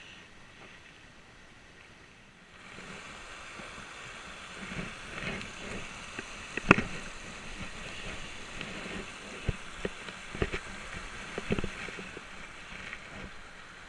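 Rushing water of a small rocky mountain stream tumbling over stones, a steady hiss that grows louder about two and a half seconds in. A few sharp knocks and clicks come over it, the loudest a little past the middle.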